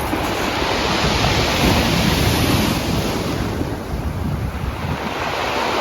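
Pacific Ocean waves breaking and washing up a rocky shore, the rush swelling to a peak about two seconds in and then easing off, with wind buffeting the microphone.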